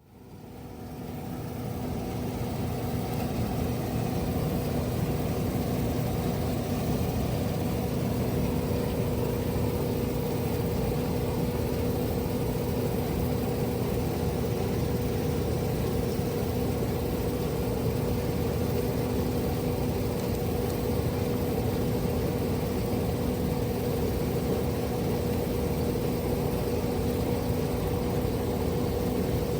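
Steady mechanical hum of a running machine, with a constant low tone and a second tone an octave above it. It fades in over the first few seconds, then holds level.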